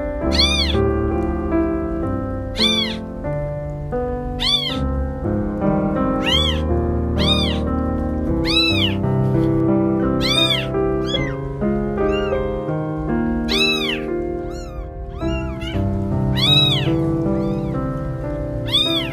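Very young kittens meowing, high thin calls about once a second, each rising and then falling in pitch: newborn kittens crying for their mother. Background music plays underneath.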